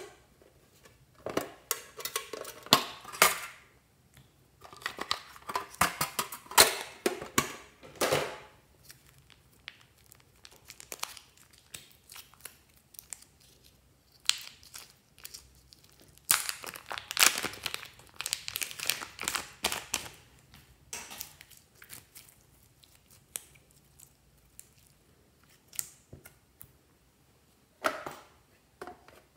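Glitter slime being handled and squeezed by hand, giving rapid crackly clicks in bursts a few seconds long with quiet gaps between them.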